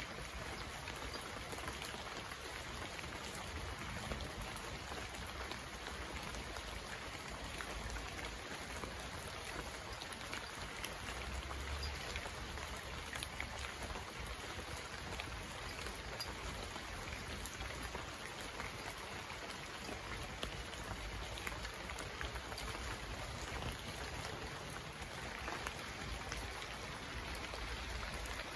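Steady rain falling: an even hiss with many scattered sharp drop hits.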